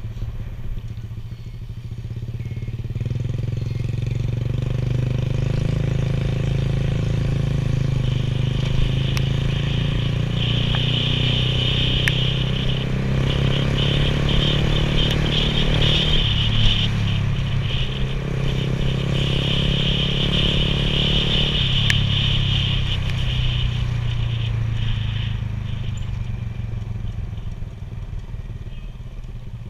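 Motorcycle engine running while riding, its pitch climbing steadily as it speeds up, dropping sharply about halfway through and again a few seconds later, then easing off near the end. A high hiss rides over the middle stretch.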